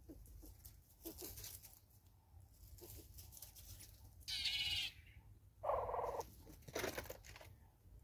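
Southern yellow-billed hornbill pecking at a plastic seed feeder: scattered short taps of the bill. About four seconds in come two short buzzy animal calls, a high one and then a lower one, which are the loudest sounds here.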